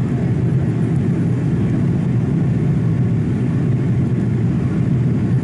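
Steady cabin noise inside a Boeing 787-8 airliner during its descent to land: an even, low rumble of the engines and airflow.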